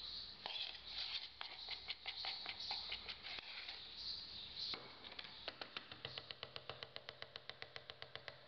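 Metal spatula tapping and scraping against a plastic cup as thick, thixotropic geopolymer paste is worked into it. The taps are irregular at first, then settle into an even run of about five a second in the second half, jarring the paste so it settles and flows.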